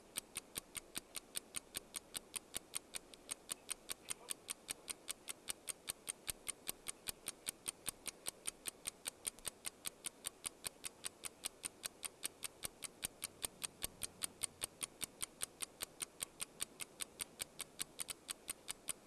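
Faint, even ticking, about five sharp clicks a second.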